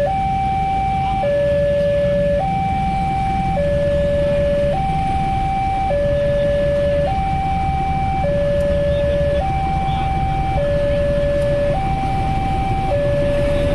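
Railway level-crossing warning alarm sounding as a train approaches: two electronic tones alternating high-low, each held for about a second, repeating steadily over a low rumble.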